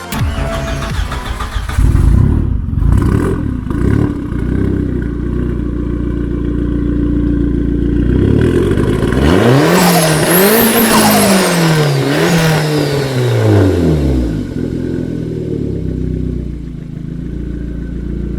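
Audi A4 B5's turbocharged 1.9-litre 20-valve inline-four running loud and revving hard. Between about nine and fourteen seconds in, its pitch climbs and drops several times, then falls away.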